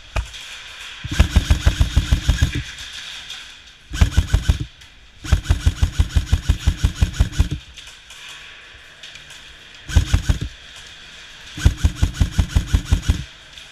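Lancer Tactical electric airsoft rifle firing on full auto in five bursts of rapid, even shots, about ten a second, the longest lasting about two seconds.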